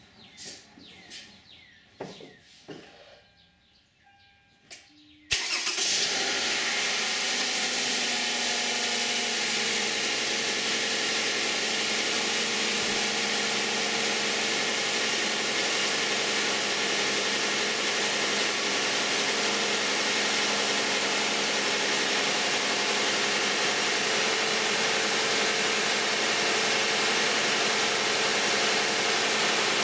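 Toyota 2GR-FE 3.5-litre V6 in a 2010 Camry with 152,000 miles, cold-starting about five seconds in: it fires at once after a very brief crank and settles into a steady cold idle. Before it starts there are only faint clicks and chirps.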